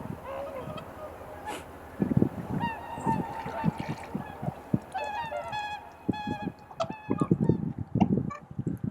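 A flock of swans calling, many short honking 'koo-koo' calls overlapping one another, busiest toward the middle and end.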